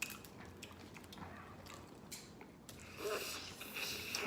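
Close-up eating sounds of a seafood boil: scattered small clicks and cracks from handling and breaking crab-leg shells. About three seconds in comes a louder breathy stretch of sucking and slurping.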